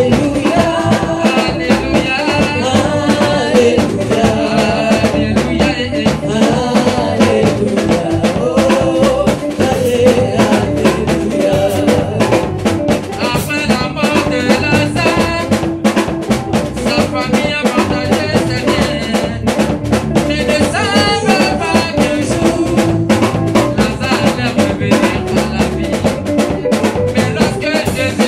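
Live gospel band playing: lead and backing singers over drums and guitar, with a steady beat.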